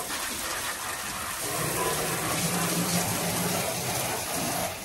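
Water from a garden hose spraying steadily onto the bare sheet-metal floor pan of a stripped Maruti 800, washing out sand and mud.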